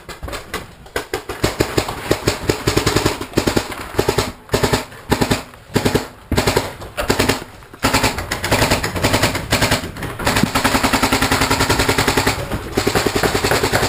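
Paintball marker firing in rapid strings of shots, broken at first, then almost without a break in the second half, with a short pause near the end.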